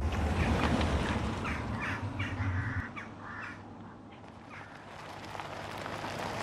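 Sound-effect passage in a music track: a deep bass rumble that cuts off about three seconds in, with a series of short, harsh cries over it, then a quieter hiss.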